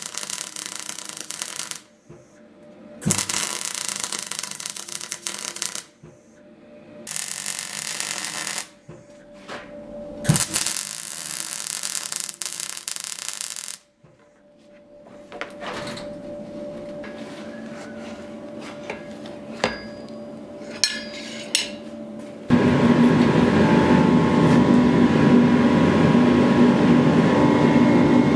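Metalworking sounds: several short, sharply cut stretches of abrasive rubbing and grinding on steel with an occasional knock. Then, about three-quarters of the way in, a loud, steady machine noise with a low hum starts.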